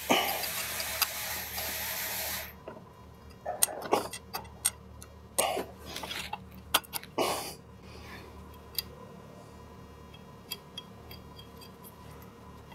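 A steady hiss for about two and a half seconds, then scattered light metal clicks and knocks as clutch weights and their pins are fitted by hand into a snowmobile's primary clutch.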